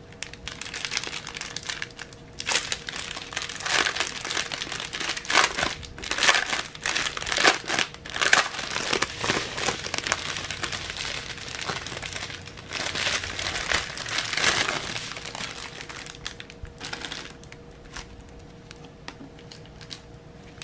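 Clear plastic packaging bags being handled and crinkled by hand, in irregular rustling bursts that thin out after about fifteen seconds.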